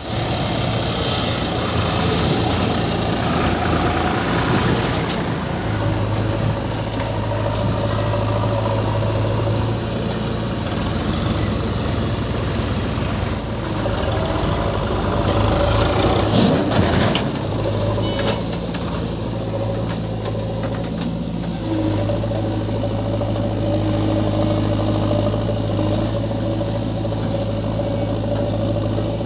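Diesel engines of a backhoe loader and a tractor running at a steady speed, with a brief rise and fall in engine pitch about halfway through.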